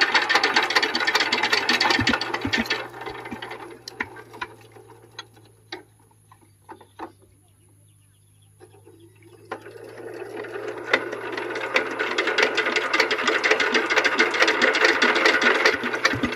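Single-cylinder diesel engine of a walk-behind power tiller being hand-cranked, a fast clattering that stops about three seconds in and, after a quiet pause with a few clicks, builds up again near the end. The engine is being cranked after air was bled from its fuel line and has not caught; the men then wonder whether a switch is off.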